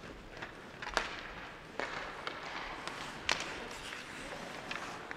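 Ice hockey sticks and puck clacking in play: a string of sharp knocks at irregular intervals, the loudest about one second and about three seconds in, over a steady background hiss.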